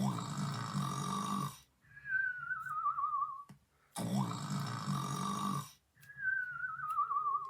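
Cartoon-style snoring: a low, rough snore of about a second and a half, followed by a wavering whistle that slides down in pitch, the pair coming twice.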